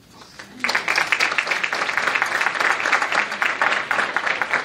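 Audience applauding, beginning suddenly about half a second in.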